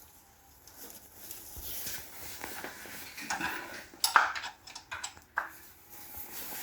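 Scattered metallic clinks and knocks with rustling as a spanner and a drain container are handled under the tractor's sump, with a sharp clink about four seconds in and another a little later.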